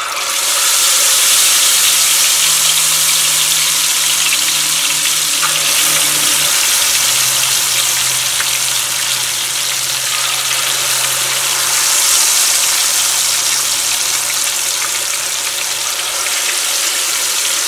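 Marinated chicken pieces deep-frying in hot oil: a loud, steady sizzle with many small crackles, starting as the first piece goes into the oil.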